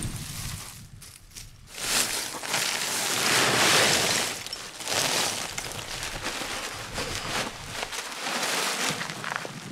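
Rustling and scraping of a woven sack being filled with lumps of charcoal, loudest from about two to five seconds in, then quieter shuffling.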